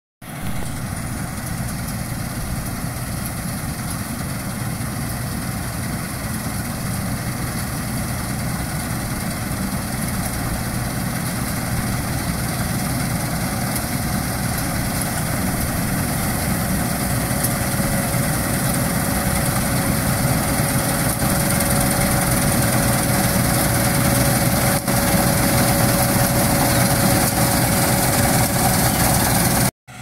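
Combine harvester running steadily as it cuts rice, its engine and machinery growing louder as it comes closer. A steady whine joins about halfway through. The sound cuts out briefly near the end.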